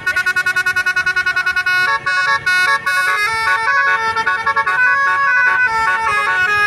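Basuri musical 'telolet' bus horn playing a tune: about two seconds of rapid staccato toots, roughly eight a second, then a melody of held notes stepping up and down.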